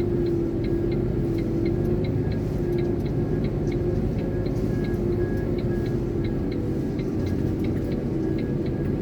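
Iveco concrete mixer lorry heard from inside the cab, its engine running with a steady drone as it creeps along a stone site track, with a regular light ticking about three times a second.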